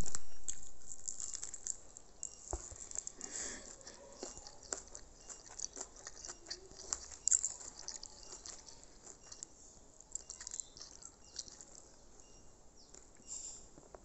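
Background music fading out over the first two seconds, then faint scattered clicks and soft rustles close to the microphone.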